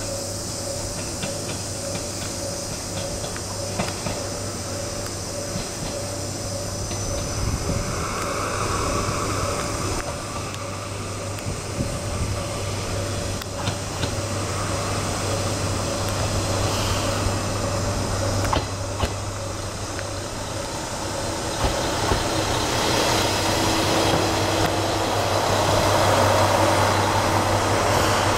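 Kanto Railway Joso Line diesel railcar approaching and running into the station. Its engine and wheels on the rails grow steadily louder, loudest near the end, with a few sharp clacks along the way.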